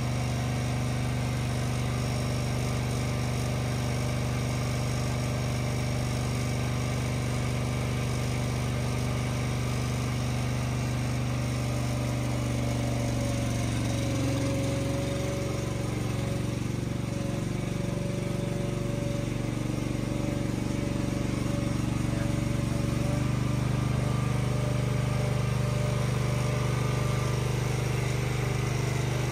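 Motor of a mobile calf milk-feeding trailer running steadily as milk is pumped through the hose into the trough, a low even hum. From about 13 seconds in the hum shifts and turns rougher for several seconds.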